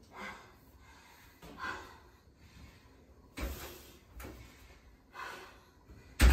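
A stacked washer-dryer being handled: a few short rubs and knocks, then the dryer's front door pulled open, with a sharp, loud knock near the end.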